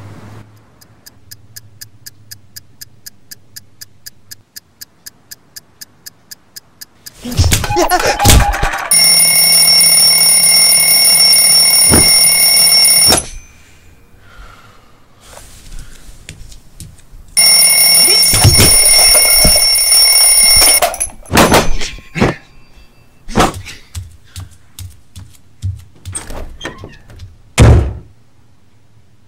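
A clock ticks about four times a second, then comes a clatter and an alarm clock rings loudly for about four seconds before it cuts off suddenly. A few seconds later it rings again and is cut off, followed by a series of knocks and thumps, the loudest near the end.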